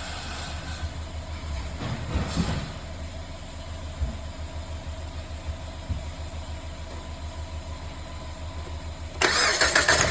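Car engine idling with an uneven low pulsing and a few stronger thumps, the engine misfiring from a fuel injector that is not working. About nine seconds in, the sound suddenly jumps much louder and harsher.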